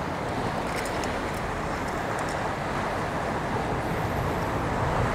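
Ocean surf washing against a rocky shore, a steady rush of noise.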